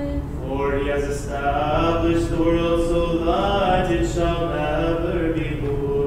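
Unaccompanied Orthodox liturgical chant: voices singing a Vespers hymn, the melody moving up and down and swelling a little after about a second.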